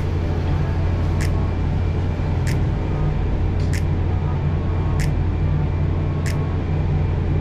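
Steady low drone of a ferry's machinery heard on its enclosed vehicle deck. A sharp click repeats evenly about every second and a quarter.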